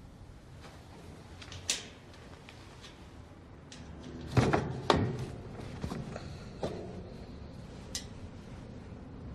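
A sheet-metal air-vent grille being worked loose with a coin and pulled off the wall: a single click, then two loud metallic clanks a little past halfway, followed by a few lighter clicks and taps.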